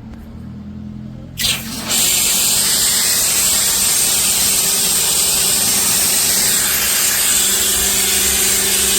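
Pressure washer triggered through its shampoo foam cannon: the spray hisses loudly with the pump motor humming steadily underneath. It starts about a second and a half in with a short spurt, then sprays steadily.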